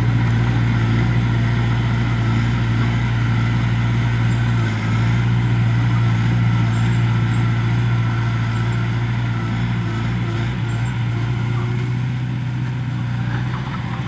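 Diesel engine of a small Komatsu crawler bulldozer running steadily under load as it pushes soil, a strong low drone. It grows slightly fainter in the second half as the machine moves away.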